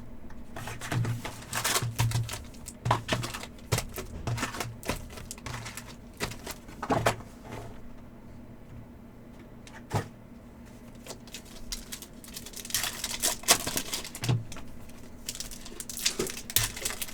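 Hockey trading cards and pack wrappers being handled during a box break: irregular clusters of sharp clicks, card flicks and short crinkling rustles, over a faint steady low hum.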